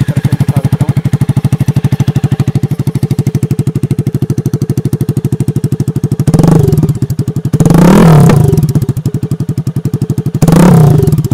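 Jawa 42's single-cylinder engine idling with a steady, loud exhaust beat through short open bend pipes, its stock silencers removed. About six seconds in the throttle is blipped once, then held for a longer rev, then blipped again.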